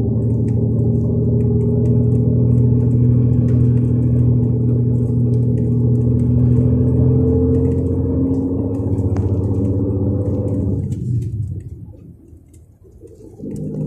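The 360 hp MAN diesel engine of a MAN Lion's Regio coach, heard on board, pulling under load, its pitch rising slowly. About eleven seconds in, the engine sound falls away for about two seconds, then comes back at a lower pitch, as in an upshift on the six-speed manual gearbox.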